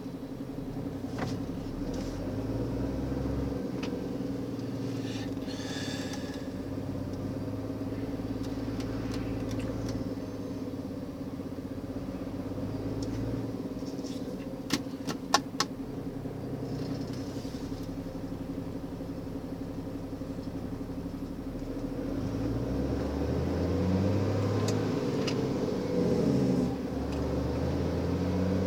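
A vehicle engine runs steadily in slow stop-and-go motorway traffic, with a low rumble that grows louder in the last few seconds. A quick cluster of sharp clicks comes about halfway through.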